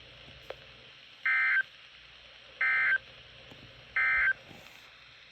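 Emergency Alert System end-of-message data bursts: three identical short buzzy digital tone bursts about a second and a half apart, marking the end of the tornado warning broadcast.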